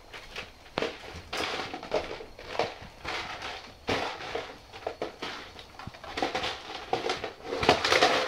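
Vizsla dogs crunching dry kibble picked up off a bare wooden floor: a run of irregular crunches and clicks, loudest near the end.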